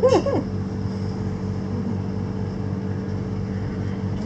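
A steady low mechanical hum, with the tail of a laugh in the first half-second.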